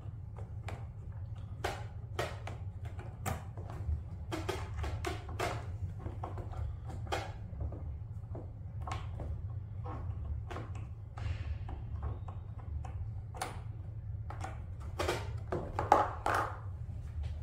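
Scattered light clicks and knocks of plastic surfboard fins being handled and seated into their fin boxes against the board, with one sharper knock near the end, over a steady low hum.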